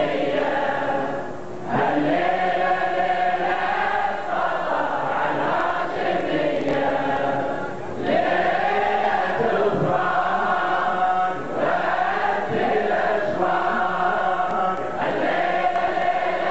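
Many men's voices chanting a Muharram mourning lament (latmiya) together, in repeated sung phrases with brief pauses between them.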